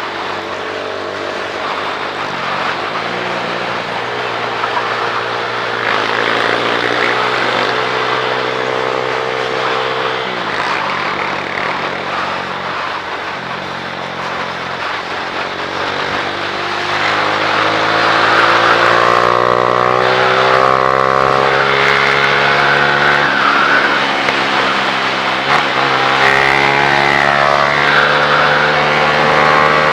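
Motorcycle engine riding along, its pitch climbing as it accelerates and dropping suddenly at each gear change, several times, over a steady rush of wind noise.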